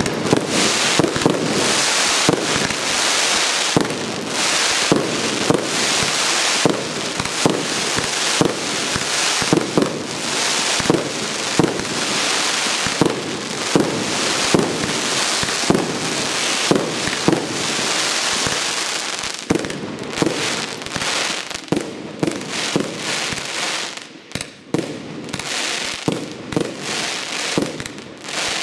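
A 100-shot 1.2-inch (30 mm) fireworks cake firing, with sharp launch thumps about two a second over a continuous crackling hiss from the bursting crackle stars. Near the end it briefly quietens, then the shots go on.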